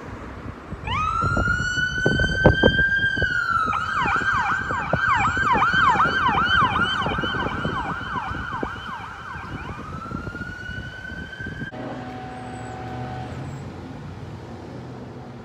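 Fire truck's electronic siren: a rising wail that holds, then a fast yelp for about six seconds, then back up into a wail that cuts off suddenly near the end. Under it and after it runs the low rumble of the trucks' engines.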